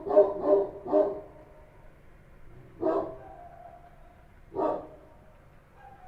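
Street dog barking: a quick run of three barks at the start, then two single barks spaced a couple of seconds apart.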